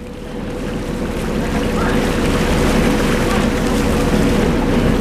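Small passenger ferry under way: the boat's motor runs at a steady hum, with water rushing along the hull and wind on the microphone.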